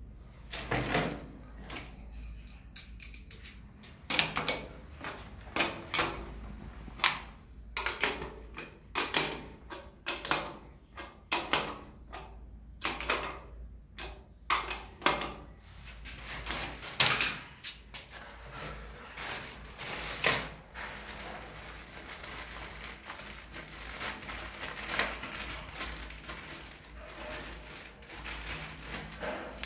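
Sharp metallic clicks and clinks of an adjustable wrench on the chrome nut of a wall-mounted bath mixer as it is tightened onto its wall fitting, many in irregular succession. In the last several seconds, a steadier rustling crinkle of a plastic bag as a steel shower hose is unwrapped.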